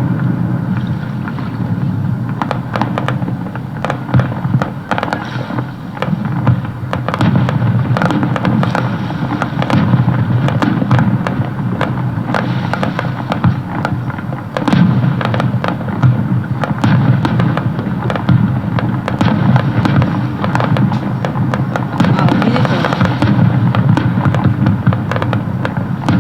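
Fireworks display over water: rapid sharp pops and crackles over a continuous low rumble of bursts, played back from a video of the show.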